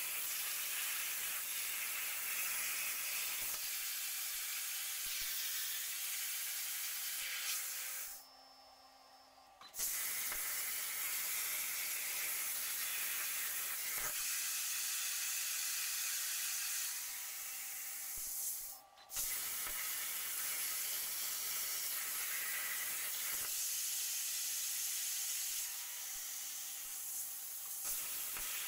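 CNC plasma torch cutting steel plate: a loud, steady hiss of the plasma arc. The arc cuts off about 8 seconds in and relights about a second and a half later, then drops out again for a moment near the 19-second mark between cuts.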